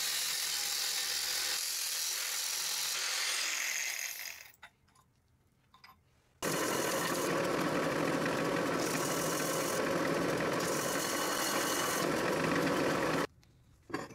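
A power tool runs on metal in two stretches: about four seconds, a pause of about two seconds, then about seven seconds that stops abruptly near the end. The second stretch sounds fuller and lower.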